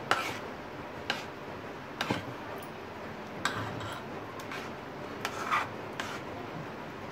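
Metal spoon scraping and clicking against a metal bowl in short strokes about once a second, working freshly separated butter in cream with cold water.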